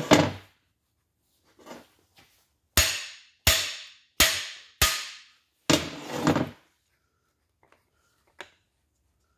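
Hammer blows on the end of a cam bearing driver bar, driving a cam bearing into its bore in a Pontiac 400 cast-iron block: four sharp, ringing strikes about two-thirds of a second apart, then a longer, rougher knock.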